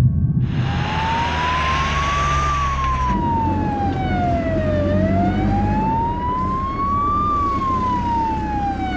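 Ambulance siren wailing in slow rising and falling sweeps, about two full cycles, over the steady rumble of the vehicle's engine and road noise; a rushing hiss fills the first few seconds.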